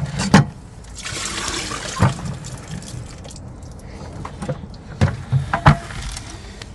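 Water pouring and splashing for about two seconds, starting about a second in, with a few sharp knocks before, during and after it.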